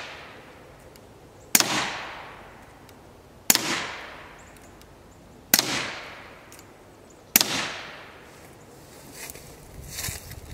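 Four suppressed .22 rimfire shots from a Browning Buck Mark pistol fitted with an SWR Spectre II can, about two seconds apart, each followed by a short echo. The rounds are 1200-feet-per-second .22 ammunition: still pretty quiet, but with some noise to it.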